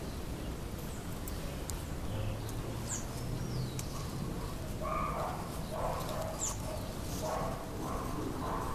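A dog barking several times, about once a second, from about four seconds in, with a few faint high bird chirps.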